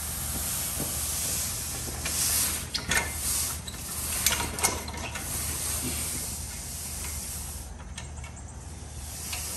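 Concrete finishing broom dragged across freshly poured, still-wet concrete, its bristles making a continuous hissing scrape as they lay down a broom finish. A few sharper scrapes and clicks come around three seconds and four and a half seconds in.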